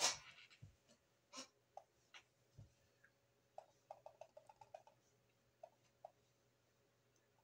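Faint, sharp clicks of a computer mouse: a louder click at the very start, a few single clicks, then a quick run of small ticks about four seconds in.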